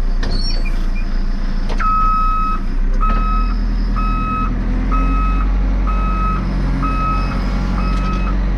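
JCB 3CX backhoe loader reversing: its reverse alarm starts about two seconds in and beeps about once a second over the steady running of its diesel engine.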